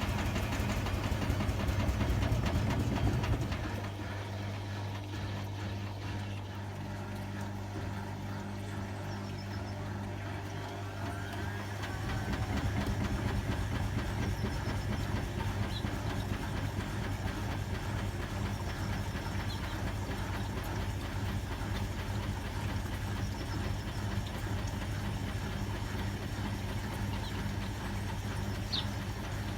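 Hotpoint WMA30 washing machine's motor and drum running with a steady hum, trying to spin an unbalanced load. It drops back about four seconds in, then picks up again with a short rising whine around twelve seconds in.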